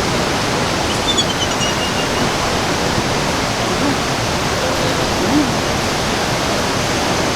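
Steady, loud rush of flowing water with no breaks.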